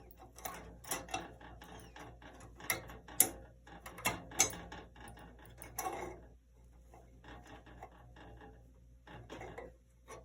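Steel bandsaw blade being worked by hand onto the saw's lower wheel: irregular metallic clicks, rattles and scrapes of the band against the wheel and housing, thinning out after about six seconds.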